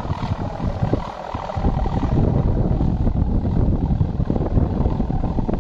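Wind buffeting the microphone in a steady low rumble, growing stronger about a second and a half in.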